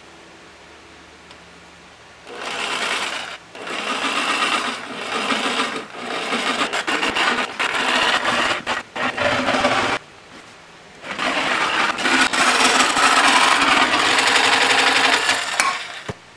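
DeWalt jigsaw cutting a round hole in a sheet of ABS plastic. After about two seconds of quiet it runs in several stop-and-start passes a few seconds long, with the longest run near the end.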